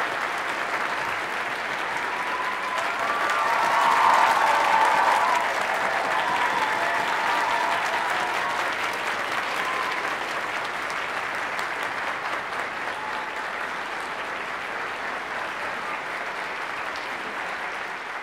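Audience applauding. The applause swells to its loudest about four seconds in, then slowly thins.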